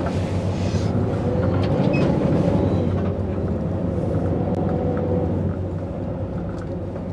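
Heavy goods lorry's diesel engine running steadily under load, a low drone as the truck pulls up a steep hill. It swells a little about two seconds in, then eases off slightly.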